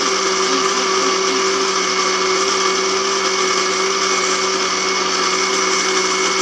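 Electric countertop blender running steadily at one speed, its jar full of champorado (chocolate rice porridge) and milk being puréed.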